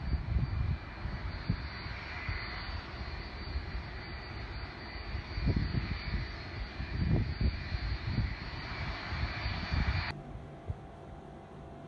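Distant jet engines of a Boeing 757-200 rolling along the runway: a steady rushing noise with a faint whine, with gusts of wind buffeting the microphone. About ten seconds in it cuts off suddenly to a quiet low hum.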